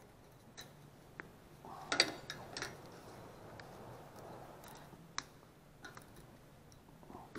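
Scattered small clicks and taps of needle-nose pliers on a metal clip and a gasket as the gasket is worked loose from a small engine's carburetor mount, the loudest cluster about two seconds in.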